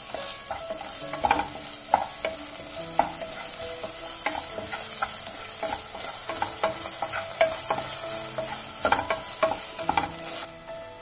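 Chopped vegetables frying and sizzling in a pot. A wooden spatula stirs them, knocking and scraping against the pot many times at irregular intervals.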